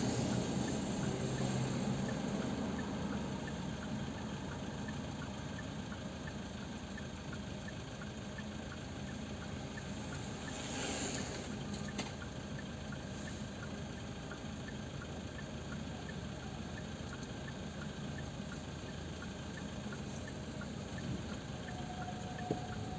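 Steady low hum and hiss of a car cabin sitting in slow city traffic, with a faint regular ticking. About eleven seconds in, a two-wheeler passing close alongside brings a brief swell of noise.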